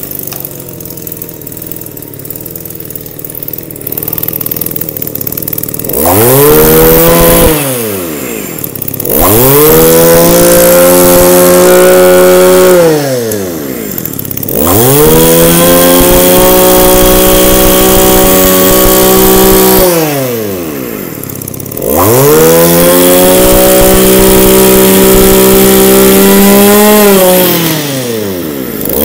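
Echo (Kioritz) two-stroke brush cutter engine idling, then revved hard four times, each burst held for a few seconds before the revs fall back to idle. It runs strong and crisp, a sign of a healthy engine.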